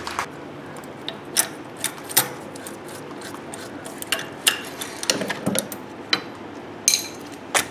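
Irregular sharp metal clicks and clinks as a steel ARES harmonic balancer puller is handled and lifted off the loosened harmonic balancer.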